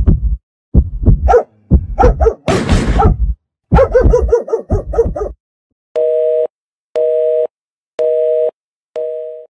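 Intro sound effects: a string of loud short calls with a burst of hiss in the middle, then a telephone busy signal, four two-tone beeps about a second apart.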